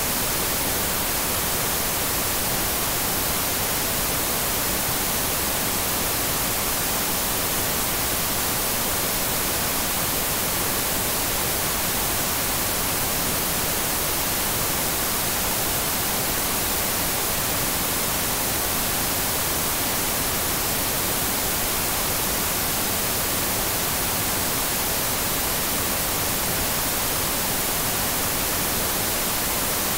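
TV static: a steady, even hiss of white noise with no breaks or changes, brightest in the high end.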